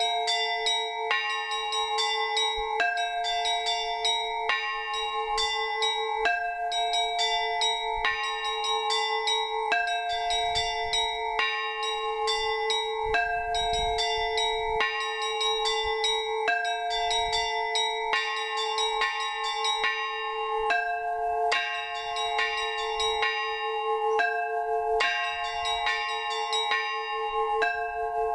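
Orthodox trezvon: a set of tuned church bells rung together, the small high bells struck in a fast rhythmic pattern that repeats about every two seconds over a steady lower bell tone. The ringing calls the faithful to the Divine Liturgy.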